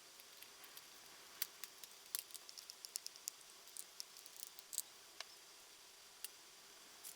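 Faint, irregular small clicks and light taps over a low steady hiss, as small parts are handled.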